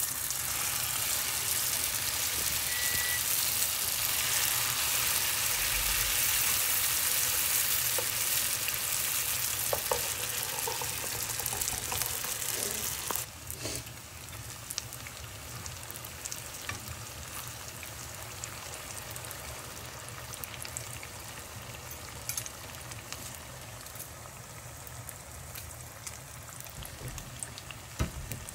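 Bourek pastry rolls frying in a pan of hot oil: a steady sizzle that drops in level about halfway through, with small scattered pops and clicks.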